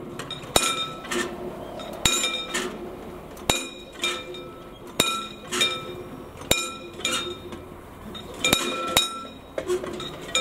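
Level-crossing warning bell on mechanical road barriers, struck at a steady pace about every second and a half, each stroke ringing on, as the barriers come down.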